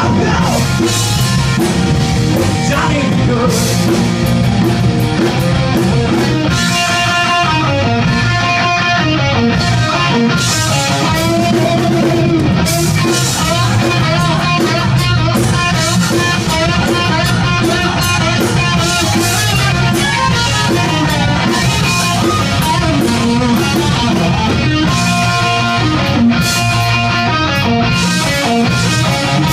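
Live rock band playing loud: amplified electric guitars over a drum kit.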